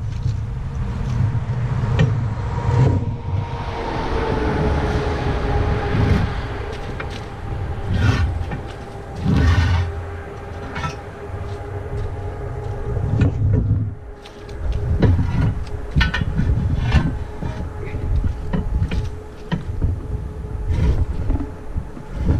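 Irregular metal knocks and clunks as a steel bar is levered around a car tire's bead to pry it off a steel rim on a homemade manual tire changer. A steady droning tone runs underneath, dipping slightly in pitch a few seconds in.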